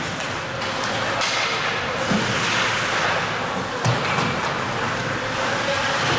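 Ice hockey game in play: steady rink noise with a few sharp knocks, the loudest about two and four seconds in.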